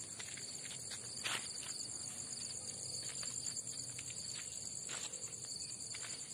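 Steady chorus of night insects, a continuous high shrill trilling, with a few soft scuffs mixed in, the clearest about a second in.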